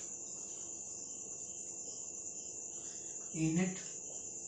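A steady high-pitched trill runs without a break, with a fainter steady tone beneath it. About three and a half seconds in there is a short voiced murmur.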